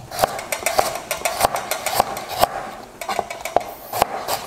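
Chef's knife slicing a carrot into thin slices on a plastic cutting board: irregular knocks of the blade hitting the board, about two or three a second.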